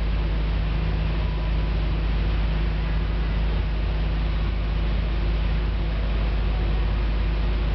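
Nissan Skyline R34 GT-R's twin-turbo RB26DETT straight-six idling steadily, a constant low rumble that never rises or falls in pitch.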